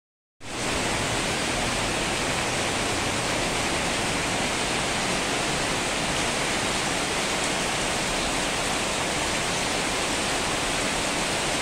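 Heavy downpour: rain pouring down in a steady, even rush, starting abruptly about half a second in.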